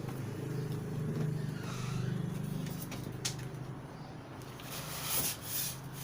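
Packaging being handled during an unboxing: a sharp click about three seconds in and crinkly plastic rustling near the end, over a steady low hum.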